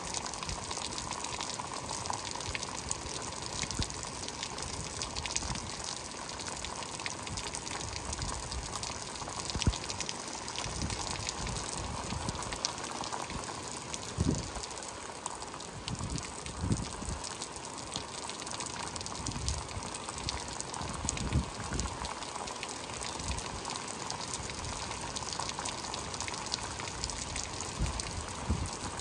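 Heavy rain falling steadily, with close drops ticking and a gushing run of water. A few low thumps stand out around the middle.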